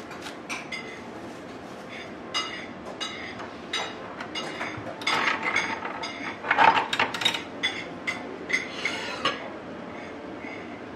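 Irregular metallic clicks, clinks and knocks from a steel hand-lever Mont Blanc cream press being handled and set up, busiest from about five to seven and a half seconds in.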